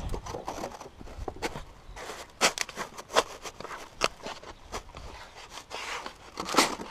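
Thin strips of XPS foam being pushed by hand into the gaps between XPS insulation boards: an irregular run of short scrapes and rubbing crackles of foam on foam.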